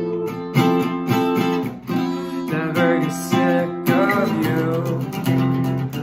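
Acoustic guitar strummed in full chords, a stroke roughly every second with the chords ringing between.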